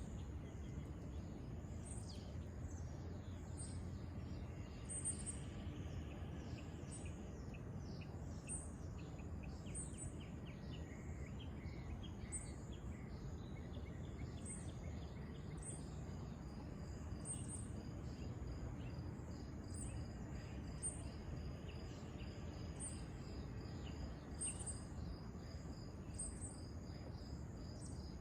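Outdoor nature ambience: small birds chirping over and over, with a steady high insect trill that comes in about halfway through, over a low background rumble.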